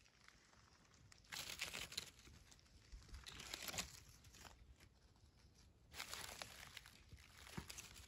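Faint crinkly rustling in three separate bursts, each under a second long.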